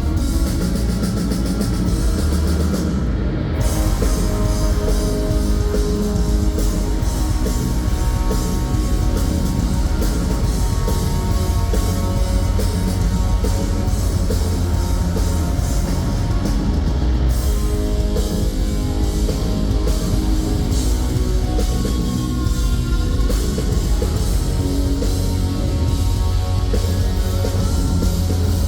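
Rock band playing loud heavy rock live: distorted electric guitar over a pounding drum kit and bass, without a break.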